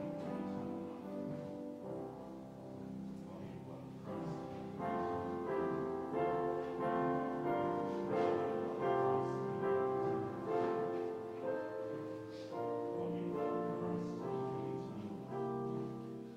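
Slow instrumental keyboard music: sustained chords that change every second or so. It grows louder about five seconds in and softens near the end.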